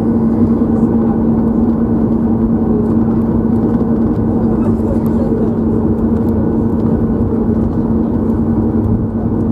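Cabin noise of a Boeing 737 MAX 8 taxiing, heard from inside at a seat over the wing: the CFM LEAP-1B engines and airframe make a steady drone with a low, even hum running through it.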